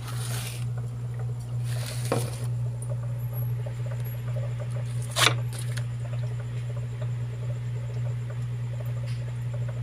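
Steady low hum with three short scratchy noises: one near the start, one about two seconds in, and the loudest about five seconds in.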